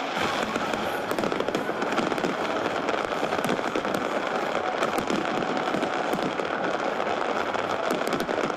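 Fireworks crackling: a dense, continuous rattle of many small pops at a steady level.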